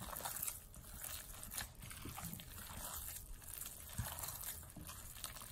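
A gloved hand kneading a wet mixture of raw minced chicken, chopped onion, herbs and spices in a glass bowl: faint, irregular squishing with soft clicks.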